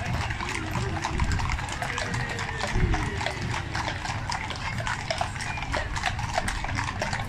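Hooves of a procession of ridden horses clip-clopping at a walk on a tarmac road, an irregular stream of overlapping hoofbeats over a low rumble.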